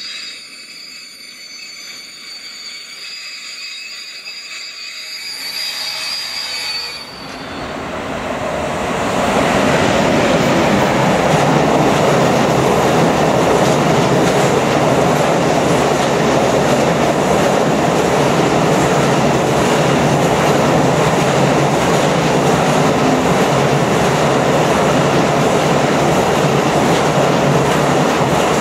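Freight train of white silo wagons hauled by two Class 185 electric locomotives passing through a station. At first it approaches more quietly, with a few thin high tones. From about eight seconds in, the wagons run by close and loud in a steady rolling rumble and rattle of wheels on rails.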